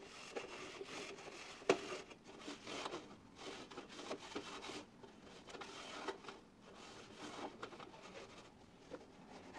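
A cloth rag rubbed by hand over a metal toolbox: irregular rubbing swishes with a few small clicks and one sharper knock about two seconds in.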